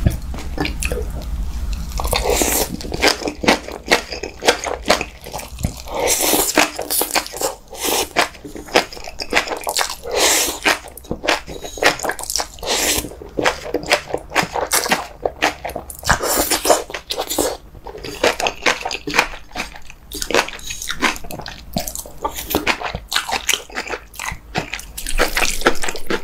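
Close-miked eating of jjajangmyeon, noodles in thick black bean sauce: wet slurping and chewing with many quick, sticky mouth clicks in an irregular run.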